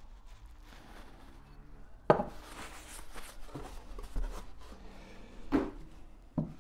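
Carburettor parts and tools being handled on a workbench: a sharp knock about two seconds in, then rubbing and scuffing with a few more knocks.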